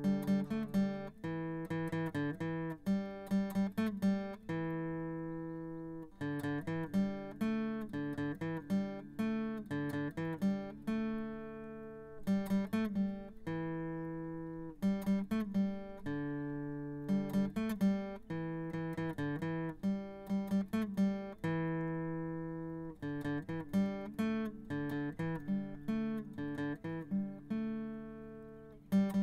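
Background music: a solo acoustic guitar picking single notes in quick phrases, each phrase ending on a chord left ringing to fade.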